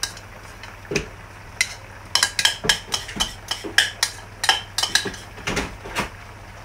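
Irregular hard clinks and taps of kitchenware, some with a short ring, about a dozen of them, bunched together a little after two seconds in, over a faint steady hum.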